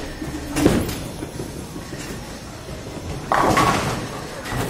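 Bowling ball landing on the lane with a thud just after release and rolling down the wood, then about three seconds in a crash of pins as it reaches the rack.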